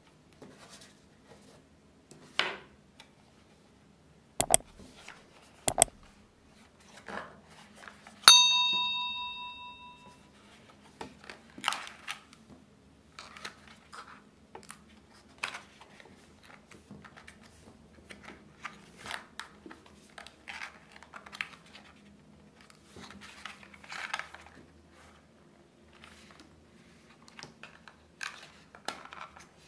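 Cardboard box and paper-card tray of a pair of earphones being handled: rustling, sliding and tapping of the packaging, with a few sharp knocks in the first six seconds. About eight seconds in, one metallic ding rings out and fades over about two seconds.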